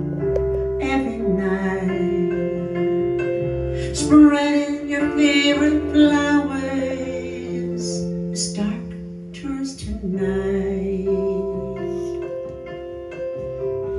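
A recorded song played back from a laptop: a woman sings a slow ballad over sustained electric keyboard chords.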